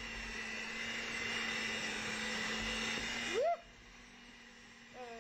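Electric hand mixer running steadily with a constant whine, beating chocolate cake batter; it cuts off about three and a half seconds in, followed by a brief voice.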